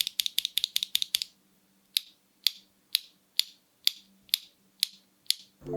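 Leobog Nimbus V3 linear mechanical keyboard switches being pressed: a fast run of keystrokes, each a press-and-release clack, then slower single presses about twice a second. Music starts near the end.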